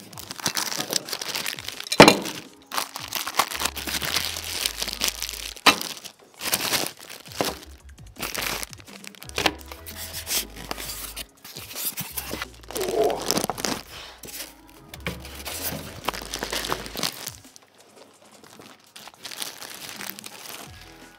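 Plastic packaging bags and wrap crinkling and rustling, with styrofoam inserts creaking and scraping, as a monitor is unboxed. A sharp crack about two seconds in is the loudest sound, and the handling noise thins out near the end.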